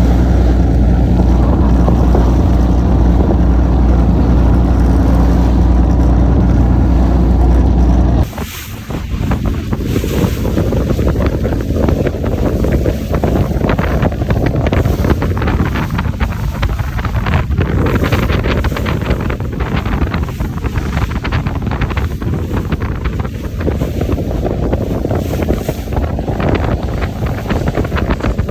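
Boat engine running with a steady low drone. About eight seconds in it cuts off abruptly to wind buffeting the microphone over the noise of the water, with gusty crackles.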